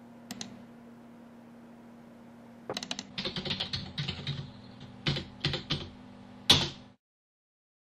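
Typing on a computer keyboard: two light clicks near the start, then a quick run of keystrokes, a few separate key presses and one harder, louder strike near the end, after which the sound cuts off suddenly.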